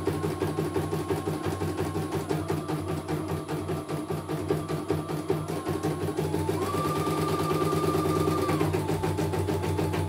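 Computerized embroidery machine stitching: rapid, even needle strokes over a motor whine. The whine rises in pitch about six seconds in and drops back near nine seconds.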